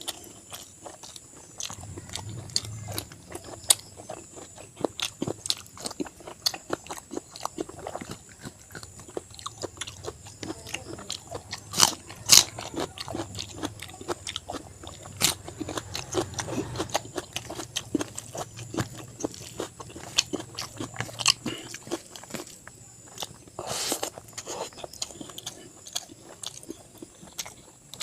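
Close-miked chewing and biting of a meal of pork, rice and curry: a steady run of wet mouth clicks and smacks, with a few louder bites.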